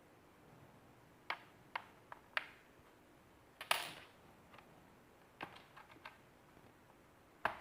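Laptop's plastic case clips clicking and snapping loose one by one as the case is pried apart: about nine irregular sharp clicks, the loudest a little before the middle.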